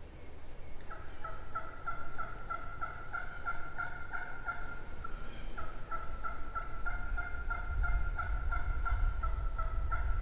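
A wild turkey yelping: a long, even run of notes, about four a second, in two series with a short break between them. A low rumble builds underneath near the end.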